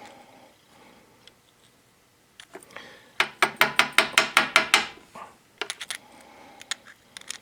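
A spark plug tapped rapidly against a hard surface to close its electrode gap: a quick run of about ten ringing metallic taps in under two seconds, with a few lighter clicks before and after.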